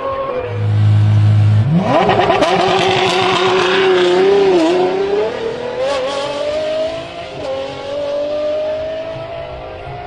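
Apollo Project EVO's naturally aspirated V12 at full throttle on a launch: a deep steady note, then the revs sweep up sharply about two seconds in, loudest over the next few seconds with brief dips at the gear changes, then a steady, slowly rising note as the car pulls away.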